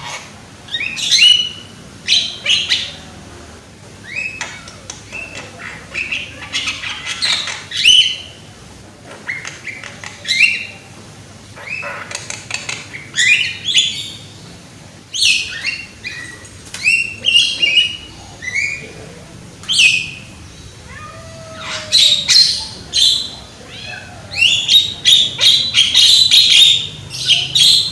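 Young Javan myna (jalak kebo) singing loudly: a varied run of harsh squawks, whistled sweeps and chattering notes in short repeated phrases, densest near the end.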